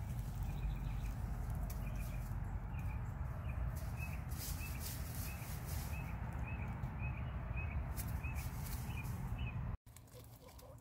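A small bird chirping over and over, short chirps about two a second, over a steady low rumble of outdoor background noise. The background drops away suddenly near the end.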